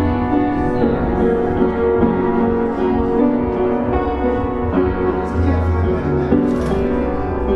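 Upright piano playing slow, sustained chords that change about once a second.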